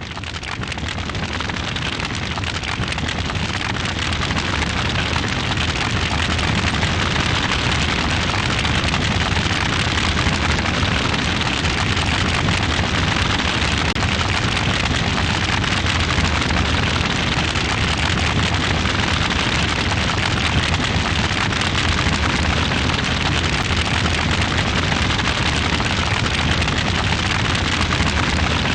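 Fire burning: a steady crackling rush of flames over a low rumble, growing louder over the first few seconds.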